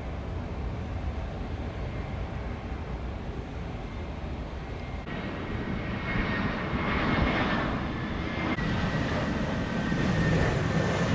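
Jet airliner passing overhead: a low rumble that swells from about five seconds in, with a high whine drifting slowly down in pitch.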